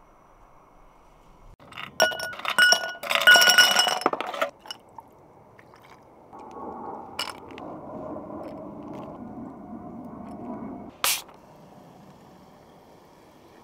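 Ice cubes dropped into a tall drinking glass, clinking and ringing against the glass for about two seconds, then liquid poured over the ice for about four seconds, with one sharp clink near the end.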